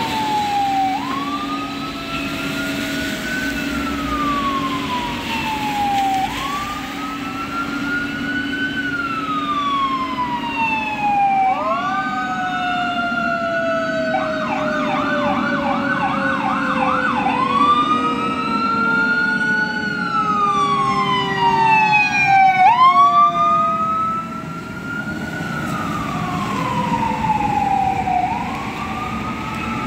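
Fire truck sirens on apparatus responding to a call. An electronic siren wails, rising and falling about every three seconds, and switches to a fast yelp for a few seconds around the middle. Under it a mechanical Federal Q2B siren winds down in a long falling tone, and the sound is loudest about three-quarters of the way in as the trucks pass.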